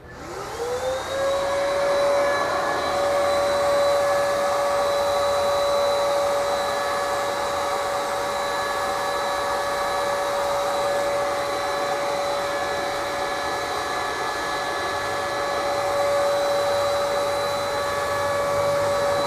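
Electric HVLP paint sprayer's turbine switched on, spinning up with a rising whine over about a second, then running at a steady high whine with a rush of air.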